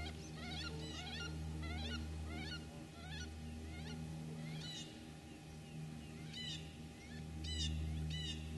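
Birds calling: a run of short, high chirps about twice a second, with a few louder ones near the end, over a steady low rumble.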